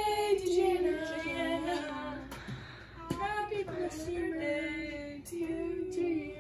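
Female voices singing a few long held notes that slide in pitch, in three phrases with short breaks between them.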